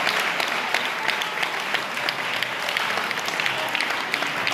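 Audience applauding, many hands clapping, easing off slightly as it goes.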